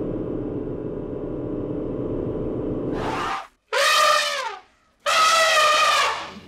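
Cartoon gibberish voices with brass-like tones in place of words: a steady low buzzing murmur that cuts off about three seconds in, then two loud horn-like 'wah' calls whose pitch bends and falls at their ends.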